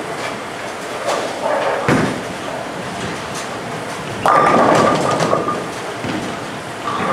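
Bowling alley background noise: a sharp thud about two seconds in, then a louder clattering rush from a little past four seconds that lasts about a second.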